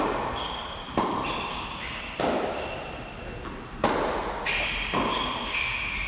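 Tennis rally on an indoor court: racket strikes and ball bounces about once a second, each ringing out in the hall's echo, with short high squeaks of players' shoes on the court between the hits.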